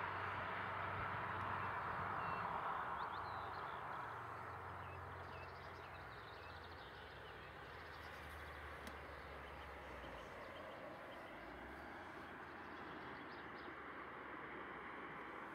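Tyre and engine noise of a vehicle on the road, fading away over the first few seconds, then a quieter outdoor background with faint birds chirping.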